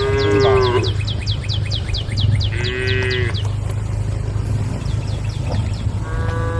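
Cows mooing: three short, fairly high-pitched calls, at the start, about three seconds in and near the end. A fast run of high, falling chirps sounds through the first three seconds, over a steady low hum.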